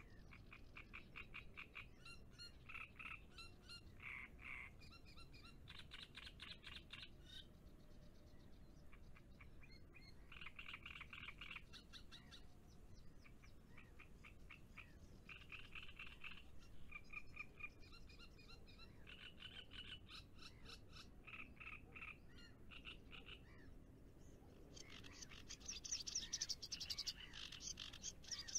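Frogs calling faintly: rapid pulsed calls in bursts of one to two seconds, one after another. Near the end higher chirping joins in.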